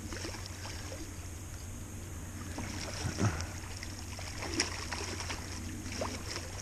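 Outdoor river ambience: a steady rush of flowing water over a low, steady hum, with a few faint brief blips about three and four and a half seconds in.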